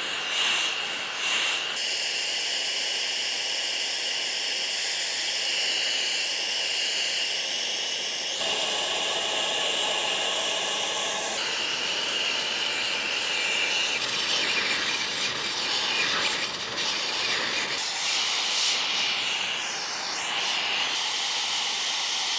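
Brazing torch flame hissing steadily against a copper tee joint as it is heated and brazing rod is fed in for a full-penetration braze joint. The hiss changes character abruptly a few times.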